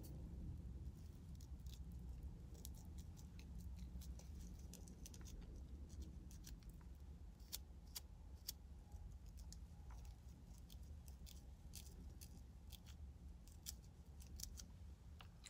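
Small plastic fine-tooth comb scraping and picking at a scalp to lift dandruff flakes: faint, irregular scratchy ticks over a low steady hum.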